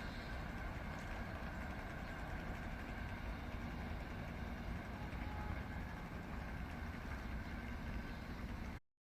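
Steady low rumble and hum of a train at a railway station, with a few held tones over it; it cuts off suddenly near the end.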